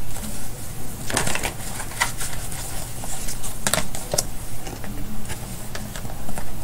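Tarot cards being handled on a table: a scatter of light clicks and rustles in a few short clusters, over a steady low hum.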